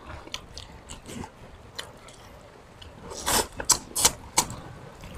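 People chewing and smacking their lips while eating by hand, a scatter of short clicks with a louder run of smacks about three to four and a half seconds in.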